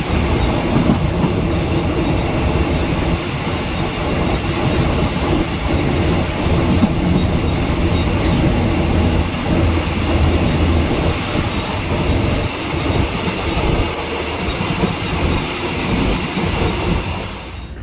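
Passenger train running along the track, heard from aboard: a steady rumble of wheels on rails that falls away just before the end.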